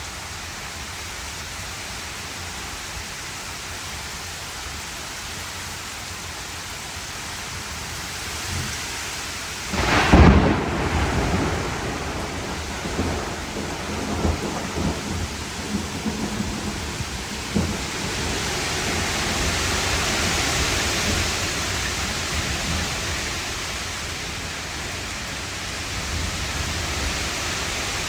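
Steady rain, then a sharp thunderclap about ten seconds in that rolls on as rumbling thunder for several seconds. After that the downpour swells louder for a while before easing.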